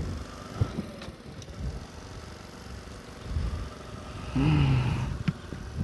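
Honda Grand Astrea motorcycle's small single-cylinder four-stroke engine running at road speed, heard from the bike with wind buffeting the microphone. About four and a half seconds in, a short steady-pitched sound lasts under a second.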